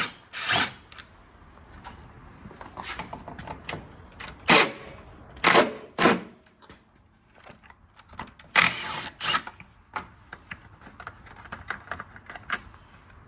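Hand work on a car's front end: scattered clicks and clatters of tools and plastic parts, with several short, loud rasping bursts, the loudest a little after the middle.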